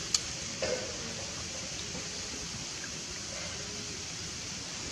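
Steady, even hiss of background noise, with a sharp click just after the start and a short, slightly louder sound under a second in.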